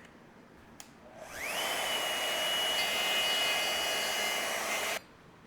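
Electric wood router spinning up about a second in with a rising whine, running steadily at full speed to take a guitar-body cavity a little deeper, then stopping abruptly shortly before the end.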